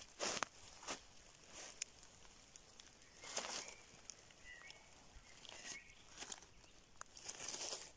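Footsteps crunching through dry fallen leaves, a handful of separate steps, then a longer rustle of leaf litter being brushed aside by hand near the end.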